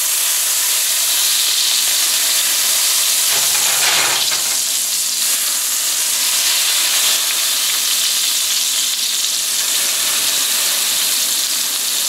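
Lemon juice sizzling steadily as it is squeezed into a hot stainless steel skillet of pan drippings, deglazing the pan.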